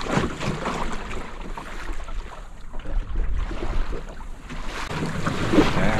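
Gusty wind buffeting the microphone, rising and falling, with choppy water splashing against the hull of a small sailing canoe.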